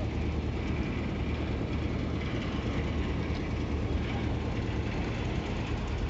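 Steady low rumble of an engine running, even in loudness throughout.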